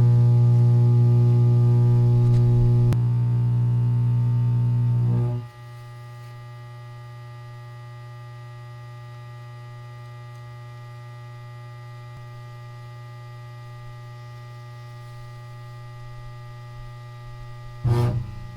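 Welder-fed carbon arc buzzing loudly with a steady mains hum. About five seconds in the arc cuts out, leaving a much quieter steady hum from the welder, and near the end the arc flares briefly again.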